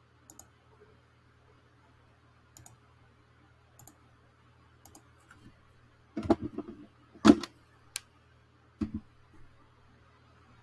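A few sharp computer mouse clicks about a second apart, then a cluster of louder knocks and thumps at the desk, the loudest a little after seven seconds in.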